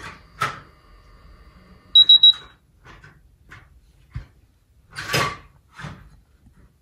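Three quick, loud, high-pitched electronic beeps about two seconds in, with light clicks and knocks of a metal spatula and a small plasticine jar around them.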